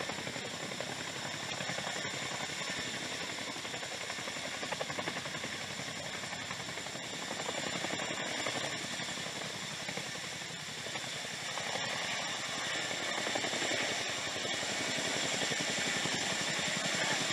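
RAF Chinook tandem-rotor helicopter hovering low, its twin rotors making a steady rapid chop over a high turbine whine.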